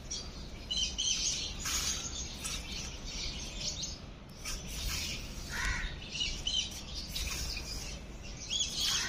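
Birds chirping and calling, many short high chirps coming and going, over a steady low outdoor rumble.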